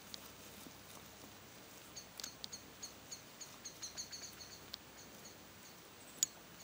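Common wombat grazing: soft, scattered clicks of grass being cropped and chewed. A run of faint, high, rapid chirps comes in the middle.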